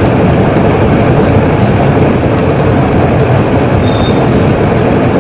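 LG front-load washing machine in its tub-clean cycle, the drum spinning fast in one direction with water and foam churning inside: a loud, steady machine rumble and wash of water noise.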